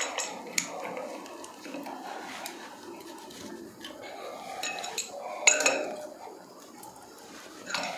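An adjustable wrench clinking and scraping against the metal offset legs of a wall mixer as they are turned in the wall's pipe outlets. A few sharp clinks are spread out, the loudest about five and a half seconds in.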